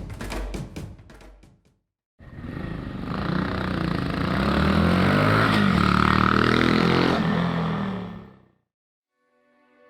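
Honda Monkey 125's single-cylinder four-stroke engine running through a DELTA Barrel 4-S aftermarket silencer, revved up and held at higher revs, the pitch rising and falling. It starts about two seconds in, after a few drum hits, and stops shortly before the end.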